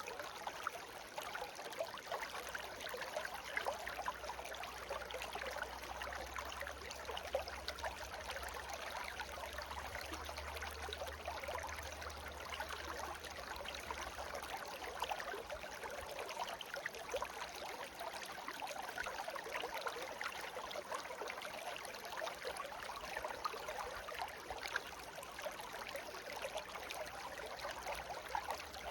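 A shallow brook babbling and trickling steadily, a dense run of small splashes and gurgles with no let-up.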